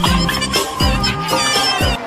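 Music with a deep bass note that slides down in pitch on each beat, under wavering high tones.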